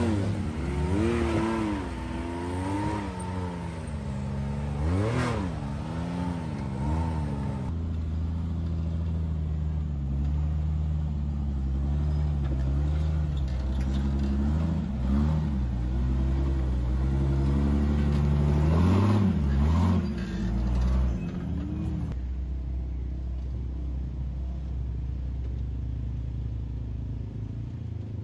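Off-road vehicle's engine revving up and down repeatedly while working over a trail obstacle. It then runs steadily at low revs, with a couple more short revs midway, and settles into a steady run near the end.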